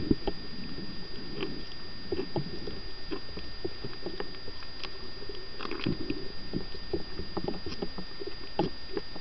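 Underwater sound: scattered short clicks and crackles over a low, steady rumble of water, with a faint steady high whine throughout.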